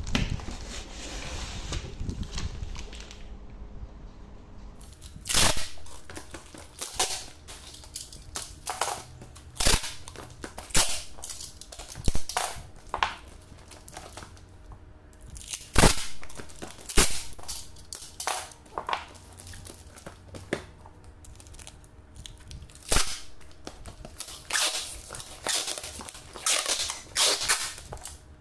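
Packing tape pulled off the roll in repeated short, loud rips as a box is taped up, with rustling and handling of the wrapping between the rips.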